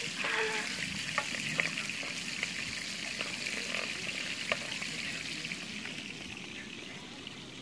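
Chopped peppers frying in oil in a pan, a steady sizzle, with a few light clicks of a spoon stirring against the pan; the sizzle eases off slightly toward the end.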